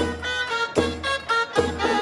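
Background music with a steady beat and a melody of sustained notes.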